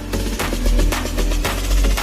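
Electronic background music with a steady drum beat and heavy bass.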